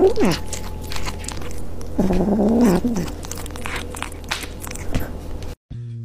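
A kitten chewing and biting on a small hard object, its teeth making many short clicks, with one drawn-out low cat cry about two seconds in.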